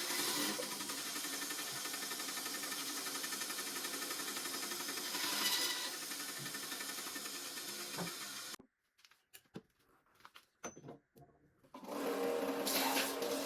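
A small power tool running steadily, then switched off about eight and a half seconds in. A few light clicks and knocks follow, then a power tool starts again about twelve seconds in with a steadier humming tone.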